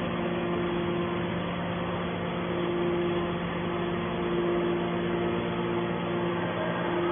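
Hydraulic scrap metal baler running: a steady machine hum from its motor and pump, with a higher tone that fades and returns a couple of times.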